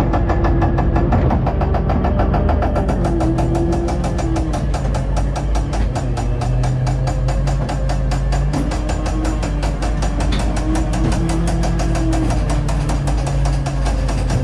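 Fairground ghost train car running along its steel track: a fast, even clatter of the wheels over the rails throughout, over a steady low hum.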